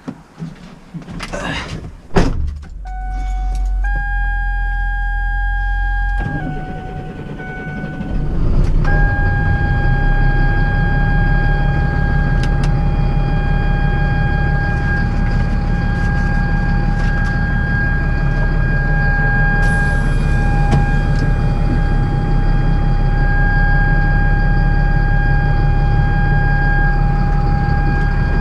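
A vehicle door shuts, then the vehicle's engine runs as it drives off, heard from inside the cab: a steady rumble with a steady whine over it.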